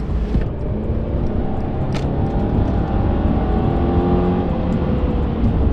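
Mercedes-Benz C-Class driving with the windows down: engine and road noise, the engine note climbing from about two seconds in as the car picks up speed, then levelling off.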